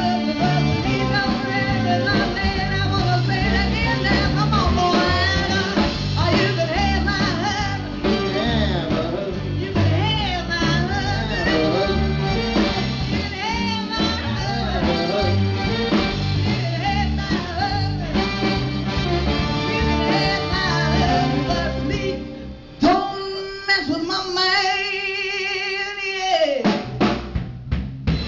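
Live band playing: a woman singing over guitars and a drum kit. Near the end the band stops on a hit, one long note with vibrato is held alone for a few seconds, and then the drums come back in with a run of hits.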